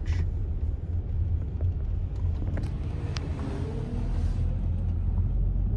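Steady low rumble of a car's engine and road noise heard from inside the cabin as it drives slowly, with a large self-propelled crop sprayer passing close alongside; a faint hiss and a few steady tones from it come through about three to four seconds in.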